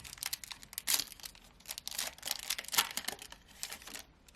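A trading card pack's foil wrapper being torn open and crinkled by hand, in a run of quick crackles that stops about four seconds in.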